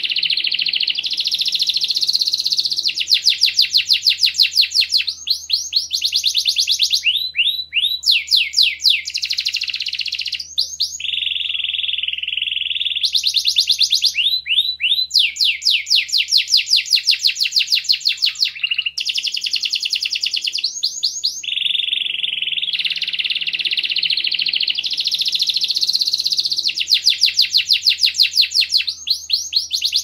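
Domestic canary, a male, singing its long continuous song: rapid trills of quick down-slurred notes alternate with buzzy rolls, the phrase changing every few seconds.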